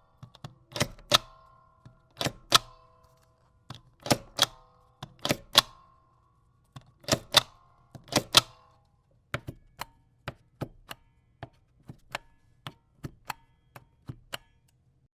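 A large ink stamper is pressed onto paper six times. Each stroke is a sharp double clack as it goes down and springs back, with a brief metallic ring. From about nine seconds in, a small stamper takes over with quicker, lighter clicks, about three a second, until they stop near the end.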